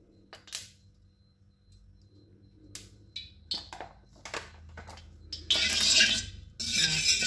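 Slotted stainless-steel spatula clicking against a heated wok, then scraping loudly around it about five and a half seconds in and again near the end, spreading freshly poured cooking oil.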